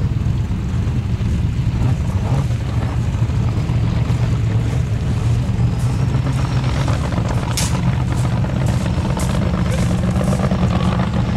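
Formula Offroad car's engine running as the car comes down a steep sand slope. A string of sharp cracks comes in the second half.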